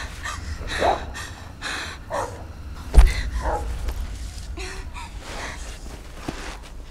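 A young woman's ragged, gasping breaths with short pained moans. A single sudden heavy thump about three seconds in.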